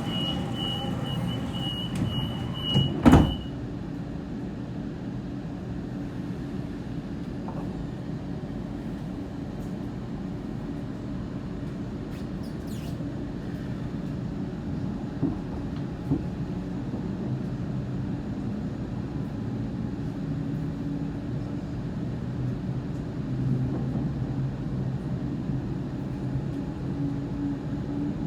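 Electric suburban train doors closing: a rapid beeping warning tone sounds, then the doors shut with a loud thud about three seconds in. After that the train runs on with a steady low hum and rumble.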